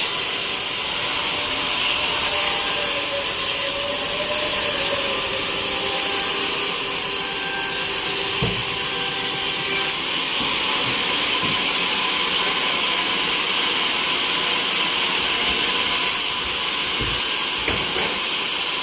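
Band sawmill blade cutting through a teak log, a steady hiss that changes slightly about halfway through.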